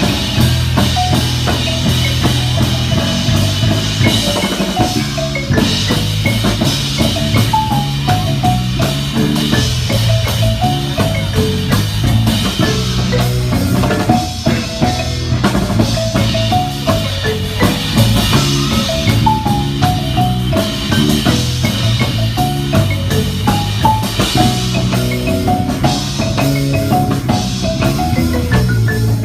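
Yamaha YM-400C marimba playing a quick melody of short struck notes over a five-string electric bass line and a steady percussion beat.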